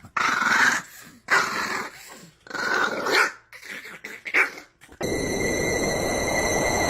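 A dog growling and barking in four separate bursts. About five seconds in, this cuts off and gives way to a steady rushing noise with a high held whine.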